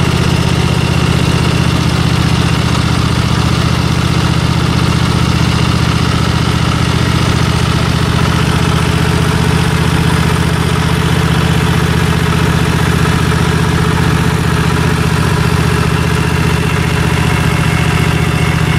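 Riding lawn mower engine running at a steady speed while the mower drags a shrub out of the ground by its roots.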